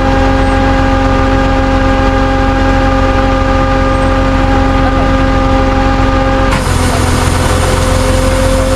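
Motor vehicle running, heard as a steady pitched drone over a low rumble. About six and a half seconds in, the upper tones drop out and a higher hiss comes up.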